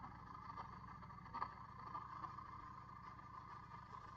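Motorcycle engine running steadily during a ride, with a few light knocks, the sharpest about a second and a half in.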